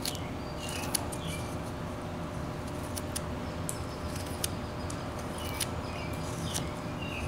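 Carving knife paring wood from a bandsaw-cut block, a series of short crisp cuts at irregular intervals, over a steady low background hum.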